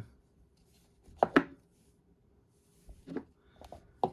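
A hollow 3D-printed plastic canopy shell handled against a wooden tabletop: a sharp double knock about a second in, then a few lighter knocks and taps near the end.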